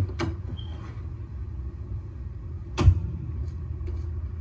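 Steady low rumble of a car, with a sharp click just after the start and a single heavy thump about three seconds in.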